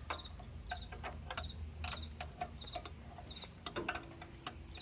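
A cricket chirping, short high chirps repeating every second or less, with scattered sharp clicks and taps of hand tools on metal.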